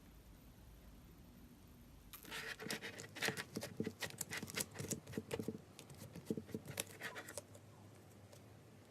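Slime being squeezed and poked by hand: a run of quick sticky clicks and crackles that starts about two seconds in and stops after about five seconds.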